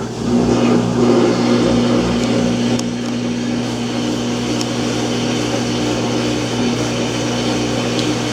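Samsung washing machine running with a loud, steady mechanical hum and a faintly pulsing tone over it, while it tries to spin. The machine fails to complete the spin cycle, a fault the owner puts down to a defective machine.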